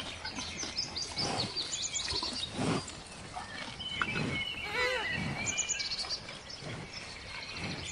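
Several birds chirping and calling together: short high chirps throughout, and a louder call of quick notes that each rise and fall in pitch about four seconds in.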